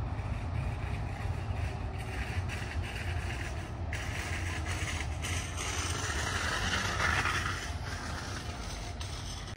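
Tokyo Monorail train running along its elevated track in the distance: a steady low rumble with a hiss that swells, loudest about seven seconds in, then eases.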